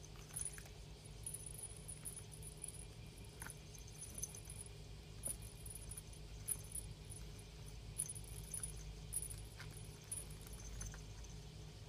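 Faint, scattered light rattles and jingles with a few soft taps as a kitten plays with a wand toy, over a low steady hum.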